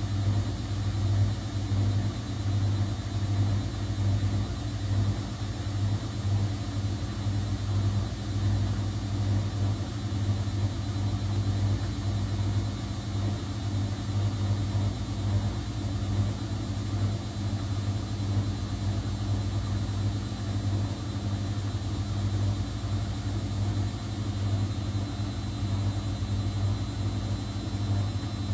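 Bosch WFCX 2460 front-loading washing machine running a cotton 60 °C wash of a blanket: a steady low motor hum that swells and eases a little as the drum turns.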